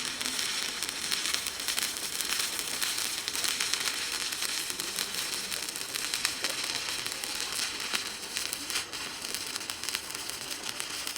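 Stick (arc) welding arc burning steadily, a continuous dense crackle and sizzle as the electrode is run.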